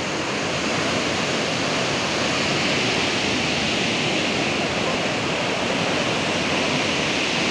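Steady rushing of a river in flash flood, fast turbulent floodwater churning past.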